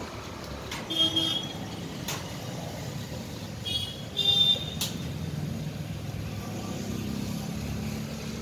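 Steady low rumble of a motor vehicle running nearby, getting a little louder in the second half. Two short high-pitched sounds come through about a second in and again about four seconds in.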